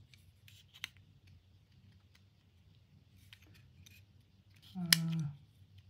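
A few faint small plastic clicks as fingers work the battery cover on a digital caliper's head, then a short hum from a man's voice about five seconds in.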